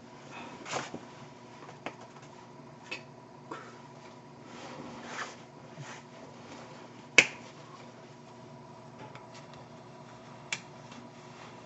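A signer's hands clapping and slapping together: about six sharp claps at irregular moments, the loudest about seven seconds in, with soft rustling in between and a faint steady electrical hum.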